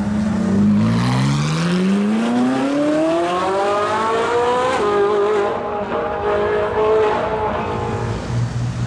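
Ferrari 458's V8 accelerating hard: the engine note climbs steadily for about four seconds, drops sharply at an upshift about five seconds in, then pulls on more gently before settling to a low steady rumble near the end.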